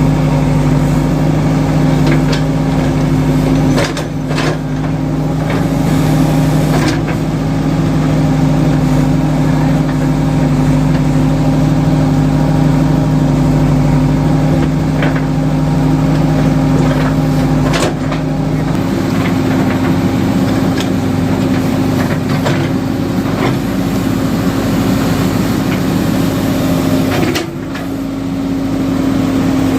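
JCB 3DX backhoe loader's diesel engine running steadily while the machine works, with a few sharp knocks. The engine note shifts about two-thirds of the way through and dips briefly near the end.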